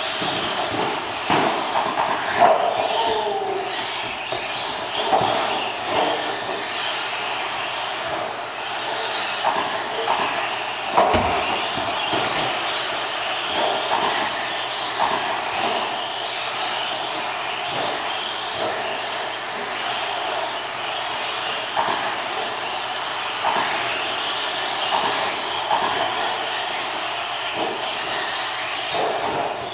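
Electric RC stadium trucks racing on a dirt track: motors whining up and down as the trucks accelerate and brake, with tyres scrabbling on the dirt and short knocks from landings and bumps. One heavier thud about eleven seconds in.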